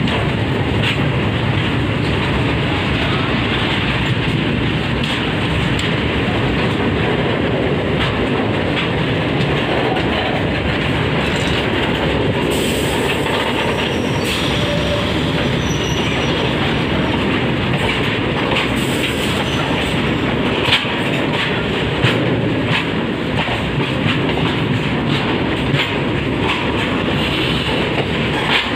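A train running at speed, heard from its open doorway: a steady rumble with wheels clicking and clattering over rail joints.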